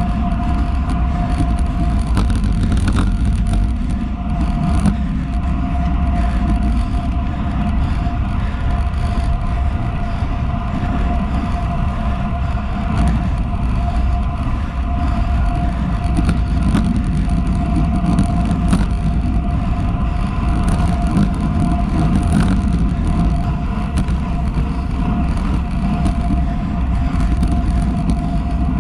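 Wind rushing over an action camera's microphone on a road bike moving at speed, with tyre noise on the asphalt and a steady thin whine over it.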